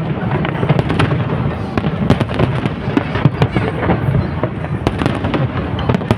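Fireworks display going off in a dense, continuous barrage: many sharp cracks and pops every second over a steady low rumble of bursts.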